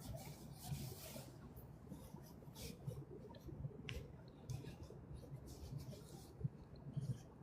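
Footsteps walking through dry fallen leaves: short, uneven rustling crunches with soft thuds underneath, a step or two a second.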